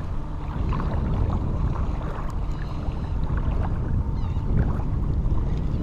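Wind buffeting the microphone over shallow water, with water splashing around legs as someone wades through the shallows.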